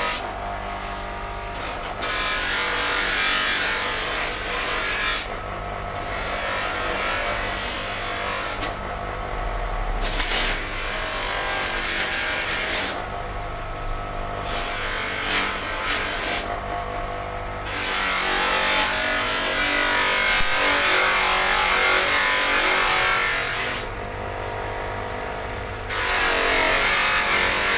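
Electric bench buffing motor running with a cloth buffing wheel, while a clear plastic Toyota Corolla GLI headlight lens is pressed against the spinning wheel: a rubbing hiss over the motor's steady hum. Several times the hiss drops away for a second or two as the lens is lifted off the wheel, leaving only the hum.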